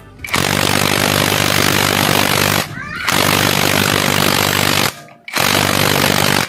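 Hoyoma Japan cordless impact wrench hammering as it tightens a car's wheel lug bolt, in three bursts of about two seconds each with short pauses between.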